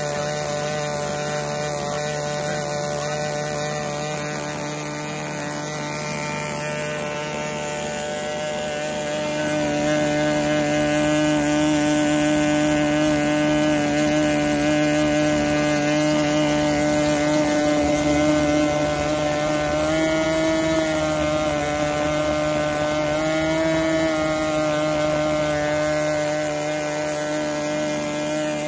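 OS .46LA two-stroke glow model-aircraft engine running steadily at about 8,900 rpm through its standard muffler. It grows louder about nine seconds in and briefly rises in pitch twice in the second half.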